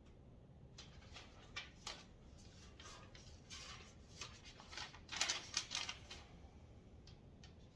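Parts of a metal tool rack being handled and fitted together by hand: scattered light clicks and knocks, with a longer scraping rattle about five seconds in.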